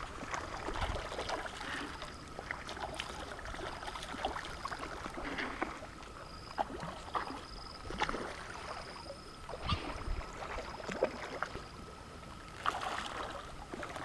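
Pond fish taking food at the surface: small, irregular splashes and slurps on the water.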